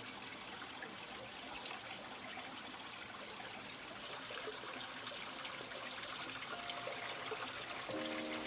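Steady trickle of flowing water, growing slightly louder about halfway through. Near the end a few sustained notes of music come in.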